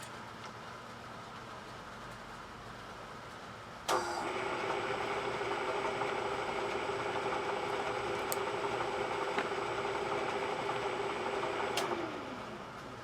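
An electric motor on a machining tool switched on about four seconds in. It runs at a steady whine for about eight seconds, then is switched off and winds down with a falling pitch.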